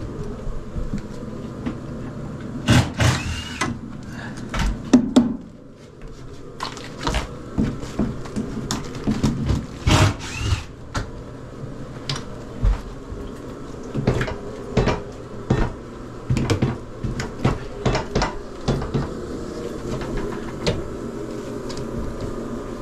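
Hand-tool work on rotted floor framing: irregular knocks, clacks and scraping of tools against wood and debris, with a low steady hum underneath.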